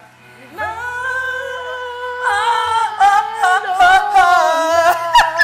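Singing: one long held note, then a wavering melody with short percussive knocks coming in about halfway through.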